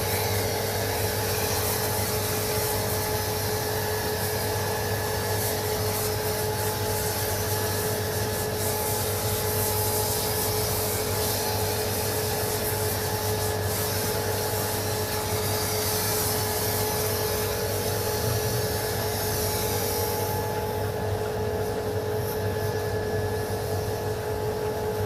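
Hot-water pressure washer spraying a truck: the high-pressure jet hisses over a steady machine hum. The hiss stops about 20 seconds in while the hum carries on.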